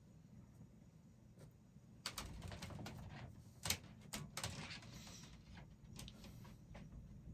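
Paintbrush working paint onto a canvas: a run of light scratchy strokes and taps starting about two seconds in, with one sharper click in the middle and a few softer ticks after.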